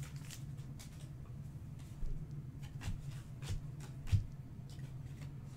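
Soccer trading cards from freshly opened Donruss packs being flipped through by hand: scattered soft clicks and slides of card stock, the sharpest about four seconds in, over a low steady hum.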